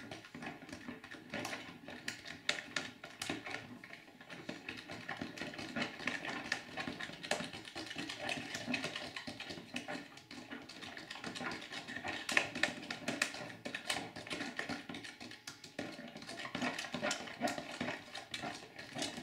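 A spoon stirring a glue and shaving-cream slime mixture in a plastic tub: a continuous run of irregular scrapes and clicks.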